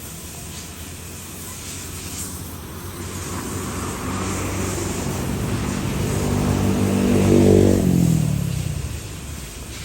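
Airplane passing low overhead: the engine noise builds steadily, peaks about seven and a half seconds in, then fades with a falling pitch as it moves away.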